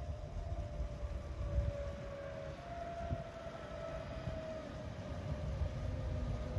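ÖBB Taurus electric locomotive approaching, its electric drive giving several steady whining tones that drift slowly down in pitch over a low rumble, growing louder as it nears.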